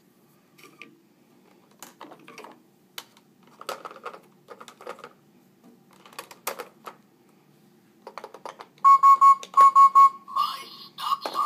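Plastic clicks and clatter as the toy bus and its figures are handled, then about nine seconds in the Fisher-Price Little People Lil' Movers School Bus toy sounds off electronically: two quick groups of three beeps, then a tinny electronic tune.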